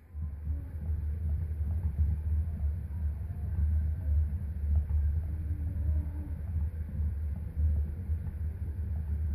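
Hamster running in a plastic exercise wheel: a continuous low rumble that starts suddenly and keeps up without a break.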